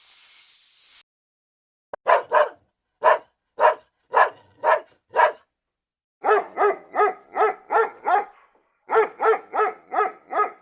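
A dog barking repeatedly: a few single barks about half a second apart, then two quick runs of about three barks a second. A hiss cuts off about a second in, before the barking starts.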